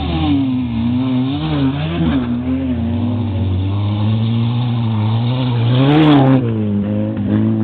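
Race car engines revving hard on a dirt track, their pitch repeatedly rising and falling as the drivers work the throttle and gears. About six seconds in, one engine revs up loudest and then drops away as the car passes close by.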